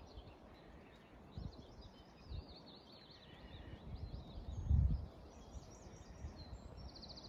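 Small songbirds chirping and singing, ending in a fast trill, with gusts of wind rumbling on the microphone; the strongest gust comes about two-thirds of the way through.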